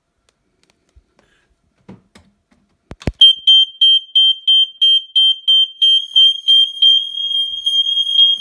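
A click, then a home smoke alarm's piezo sounder goes off with a loud, high-pitched beeping about three times a second. The beeps run together into a near-continuous tone and stop abruptly near the end, as in a test-button alarm test.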